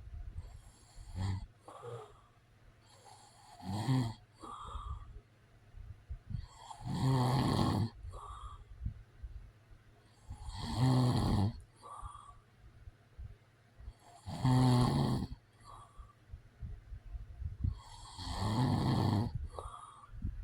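A man snoring in his sleep: soft breaths at first, then four long, loud snores about four seconds apart, each followed by a shorter, softer breath.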